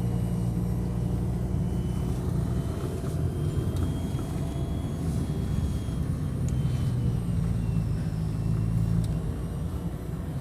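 Car engine and road noise heard from inside the moving car: a steady low rumble.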